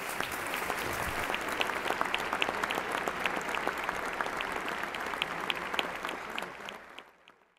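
Audience applauding, dense clapping that fades away in the last second or so.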